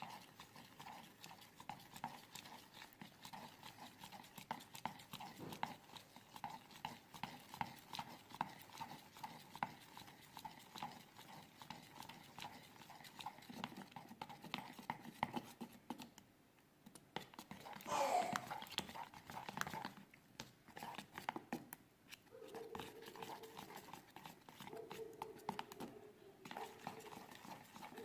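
Spoon or stick stirring a glue and food-coloring slime mixture in a container: a steady run of small clicks, taps and scrapes. About two-thirds through there is a brief louder sound with a falling pitch.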